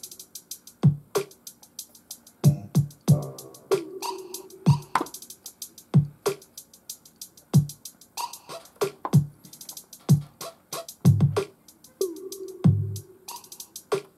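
Roland SP-404A sampler playing one of its preloaded electronic drum patterns: deep kicks that drop in pitch, quick rolls of hi-hats and a held bass-synth tone.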